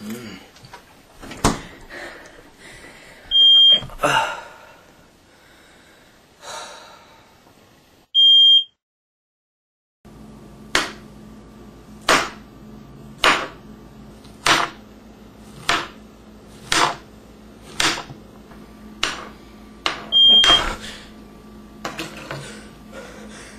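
A smoke alarm chirping: three short, high, single beeps, several seconds apart. Between them come sharp knocks or thumps, falling into a steady beat of about one a second in the second half, with a brief dead-silent gap near the middle.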